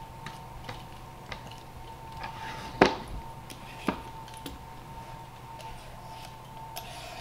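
Short scraping strokes of a T-shaped vegetable peeler taking the skin off a pre-cooked butternut squash. There is a sharp knock on a plastic cutting board about three seconds in and a smaller one about a second later.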